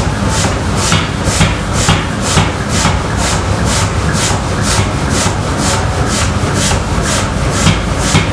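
Large power hammer forging a red-hot steel bar, its ram striking in a steady rhythm of a little over two blows a second.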